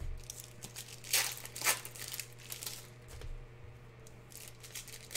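Crinkling and rustling of packaging handled by hand, in several short sharp crackles, the loudest two a little over a second in.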